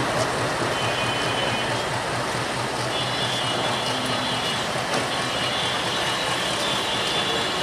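Passenger coaches of a Bangladesh Railway intercity express train rolling past alongside the platform: a steady rumble of wheels on rail, with faint high-pitched tones coming and going.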